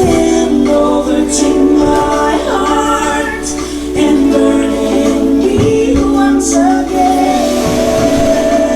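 Gospel worship music: singing with instrumental accompaniment, held notes in a slow melody.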